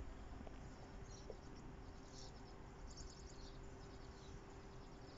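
Faint outdoor background with a few soft, high chirps and a faint steady low hum.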